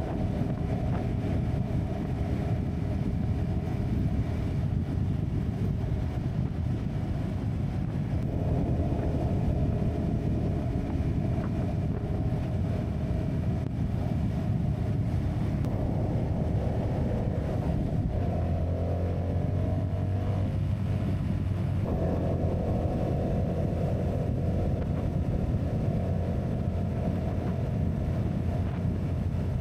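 CFMoto 250NK's single-cylinder engine running at a steady cruise, with wind noise over the camera's built-in microphone; the engine's note shifts a few times in the second half.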